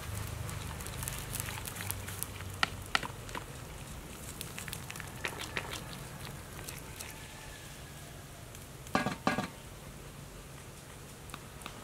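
A large pot of broth and vegetables bubbling over a cooking fire: a low steady rumble with scattered sharp crackles. About nine seconds in come two short animal calls in quick succession.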